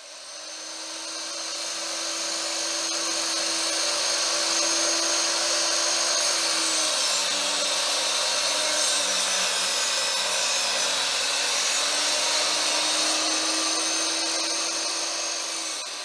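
Electric sliding compound miter saw running steadily while its blade cuts red oak boards.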